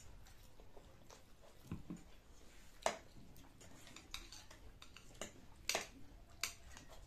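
Quiet noodle-eating sounds: chewing and slurping, with a handful of short, sharp clicks, the loudest about three seconds in.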